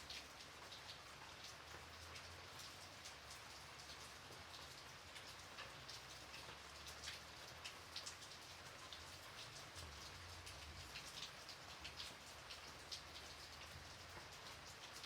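Gentle light rain falling: a steady soft hiss scattered with many sharp little drop ticks, over a faint low rumble.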